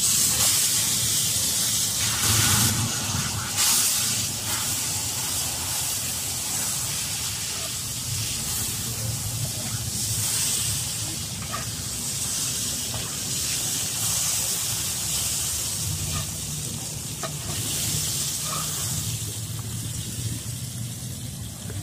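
Corn tortillas dipped in red salsa sizzling in hot oil on a griddle, a steady frying hiss that surges as a sauced tortilla goes into the oil at the start and again a couple of times in the first four seconds. A low steady hum runs underneath.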